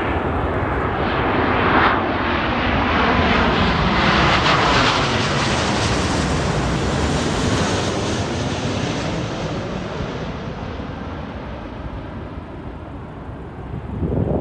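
Boeing 777-200ER twin-jet airliner passing low overhead on landing approach. Its engines run loud, with a whine that falls in pitch as it goes by, then fade as it moves away. There is a brief swell just before the sound cuts off at the end.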